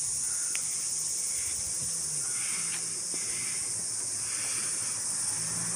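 Steady high-pitched insect chorus, an even shrill buzz with no break, with faint low traffic-like hum coming and going beneath it.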